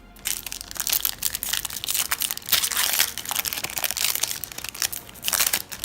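Foil booster pack wrapper crinkling and crumpling in the hands, a dense crackle that stops briefly about five seconds in.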